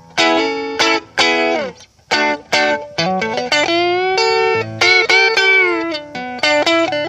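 Electric guitar, a Telecaster on its neck pickup, played through a Trinity Tweed amp with the amp volume on 3 and the guitar's volume rolled back to about 75%. It plays a few picked chords and single notes, with string bends in the middle.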